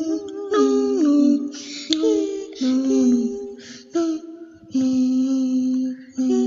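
A lone high voice singing a slow tune, long held notes sliding from one pitch to the next, with breathy hisses between phrases.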